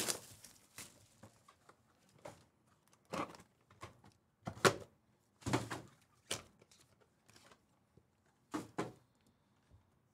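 Plastic shrink wrap torn off a trading-card hobby box, then scattered short rustles and knocks as the cardboard box is opened and a stack of cards is taken out and handled.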